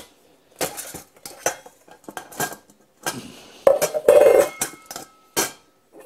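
Stainless steel Zebra billy pot being handled: a series of metal clanks, clicks and scrapes from its lid, latch clips and bail handle, loudest around the middle, a few of them ringing briefly.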